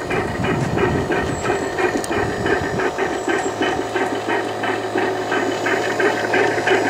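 Electronic sound module of an RC model fishing boat playing a one-cylinder 5 hp marine engine, chugging with a steady, even beat.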